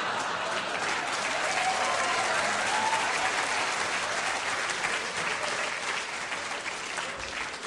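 Theatre audience applauding, a dense steady clapping that eases off slightly near the end.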